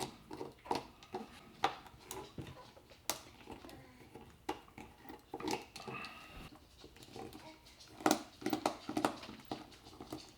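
Screwdriver removing the three screws from the back of a Yaesu MH-48 hand microphone: irregular small clicks, taps and scrapes on the plastic case, with a cluster of louder taps about eight seconds in.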